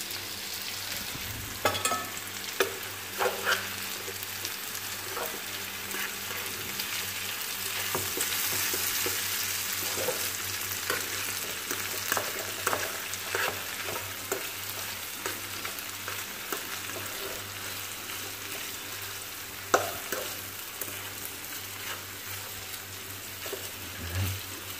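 Food sizzling steadily as it fries in hot oil in a pot, with a utensil knocking against the pot a few times.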